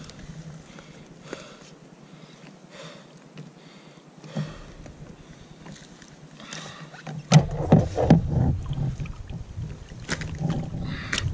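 Water lapping against a kayak hull. From about seven seconds in come a run of sharp knocks and thumps as a landed yellowtail kingfish is handled on the kayak.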